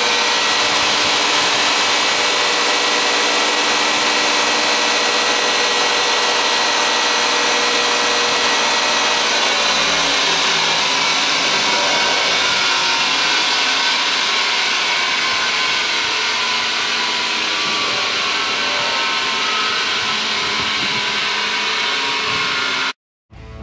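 Scott PL4810 stainless-steel plow mixer running empty: a loud, steady machine whirr from its motor and gear drive, with a few held whining tones. It cuts off abruptly near the end.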